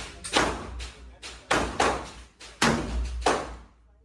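Gunshots fired in quick succession, about five sharp reports in four seconds, some in close pairs, each followed by a short ringing tail.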